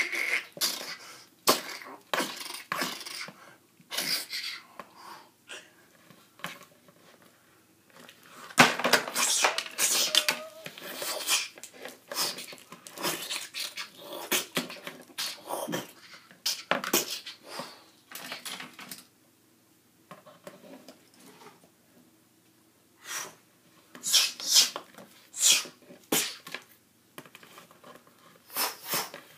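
Plastic action figures knocking and clicking together as they are handled, in irregular bursts of sharp clacks with a quieter stretch about two-thirds of the way through.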